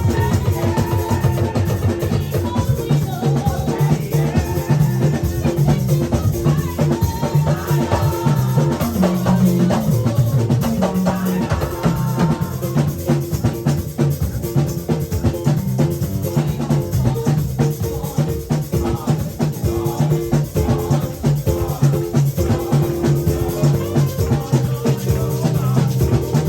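Live church band music: a drum kit playing a busy, steady beat under held keyboard chords.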